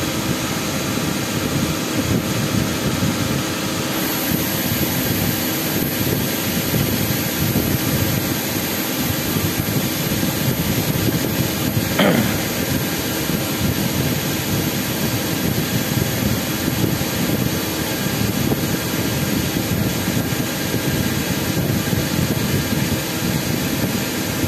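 CNC lathe running a turning cycle through its final passes: steady machining and motor noise with a steady hum. A high thin whine comes in about four seconds in, and there is a brief louder sound about halfway through.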